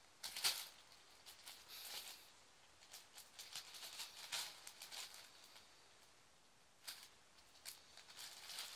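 A kitten playing: faint, scattered rustles and scratches from its paws and claws, loudest about half a second in, then coming in short flurries.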